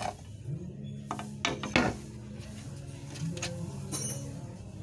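Knocks and clatters of a car ECU's metal case being handled and turned over on a workbench. The loudest knock comes a little under two seconds in, and a light metallic clink with a short ring comes about four seconds in.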